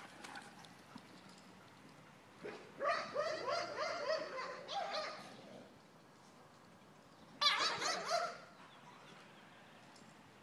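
Belgian Tervuren dogs vocalising in play: two bouts of high, wavering calls, a longer one about three seconds in and a shorter one about seven and a half seconds in.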